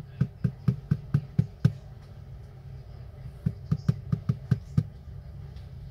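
Two quick runs of light taps or clicks, about four a second: about seven in the first second and a half, then about eight more a little past the middle. A steady low hum runs underneath.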